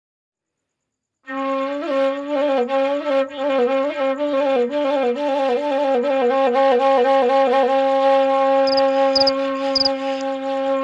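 Solo wind instrument playing traditional-sounding music: after a second of silence it starts an ornamented melody that wavers quickly between nearby notes, then settles into one long held note for the second half.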